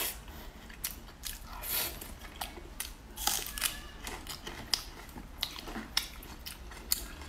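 Close-up eating sounds: biting into and chewing pan-fried tofu, soft and wet, with several sharp little clicks in the second half.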